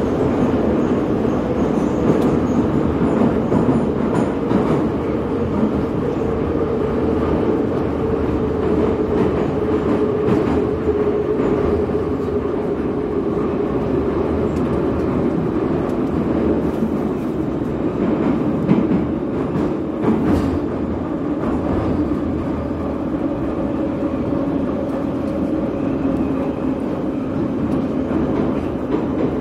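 Metro train running between stations, heard from inside the carriage: a steady rumble of wheels on rails with a humming tone that sags slightly and then rises again, and a few knocks from the track about two-thirds of the way through.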